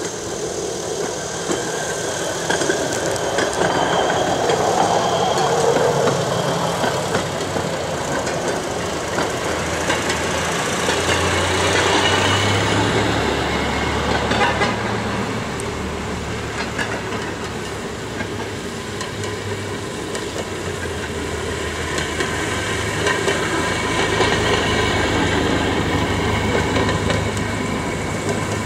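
A procession of railway motor cars (speeders), including Fairmont cars, running past one after another behind a hi-rail pickup truck: small engines running, steel wheels clicking over the rail joints. The sound swells and fades as each car goes by.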